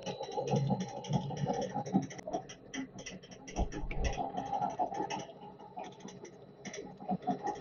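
Colchester Student lathe running under power while screw-cutting a 24 TPI thread in silver steel, with a busy, irregular clatter of the machine's gearing and a faint steady high whine.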